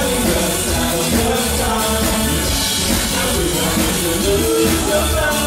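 Live dance band playing: a sung vocal over drums and bass guitar, with a steady beat.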